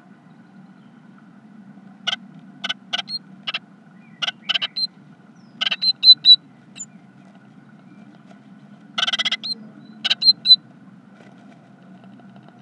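Adult great tit shifting and scratching in the nest material of a wooden nest box: sharp scratches and taps in two clusters, about two seconds in and about nine seconds in, each followed by brief high peeps from the birds as the parent feeds its newly hatched chicks. A steady low hum runs underneath.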